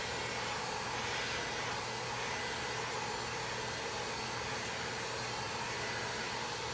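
Electric heat gun running with a steady hiss, blowing hot air onto the vinyl walls of a window's shoe channel to soften the vinyl.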